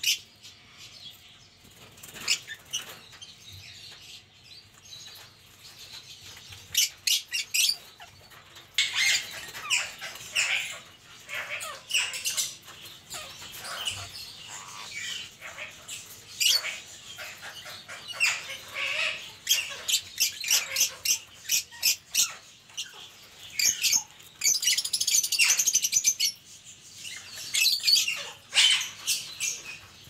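Two rose-ringed (Indian ringneck) parakeets squabbling: runs of short, sharp, high-pitched calls and chatter that come and go, with quieter gaps between them. The owner calls it their angry mood.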